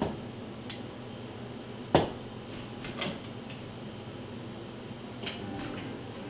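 Barista working the espresso bar: a sharp knock about two seconds in, the loudest sound, with smaller knocks near the start and about a second later and a bright clink near the end. Underneath runs a steady low hum.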